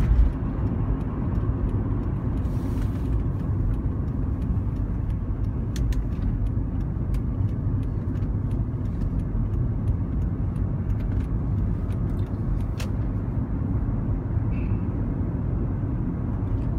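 Steady low rumble inside a Toyota Sienna minivan's cabin, the running noise of the vehicle, with scattered light clicks and one brief faint high tone near the end.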